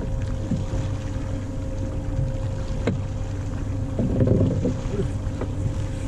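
A fishing boat's engine running steadily, a constant hum with a steady mid-pitched tone over it, broken by a sharp knock about three seconds in and a brief jumble of handling noise around four seconds.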